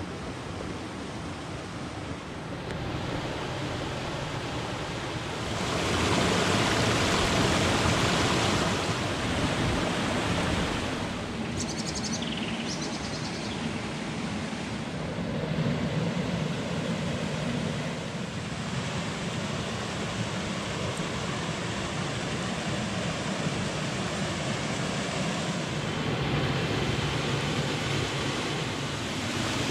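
Shallow stream water rushing over stones, a steady hiss that grows louder for a few seconds about six seconds in.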